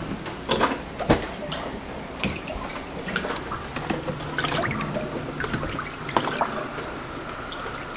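Floodwater sloshing and splashing, with irregular louder splashes about half a second in, about a second in and again near six seconds. A faint high tick repeats about twice a second.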